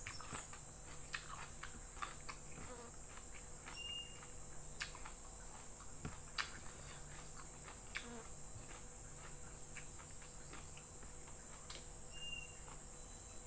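Close-miked eating sounds: chewing fried chicken liver and fried noodles eaten by hand, with small wet mouth clicks and lip smacks scattered throughout. A steady high hiss runs underneath.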